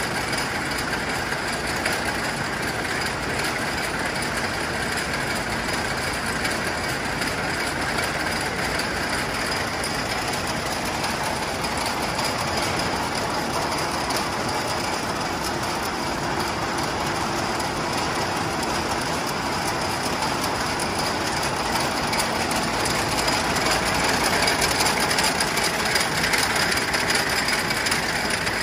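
24-spindle wire braiding machine running: a steady, rapid mechanical rattle from the wire carriers circling the hose core, with a faint steady whine, a little louder near the end.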